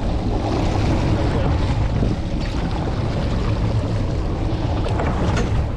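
Yamaha outboard motor running, with water washing around the boat's stern and wind buffeting the microphone in a steady rush.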